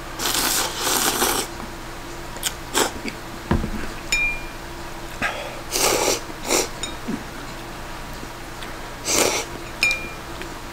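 Ramen noodles slurped from a bowl: one long slurp near the start, then shorter slurps about six and nine seconds in. Small clinks of chopsticks against the ceramic bowl fall between the slurps.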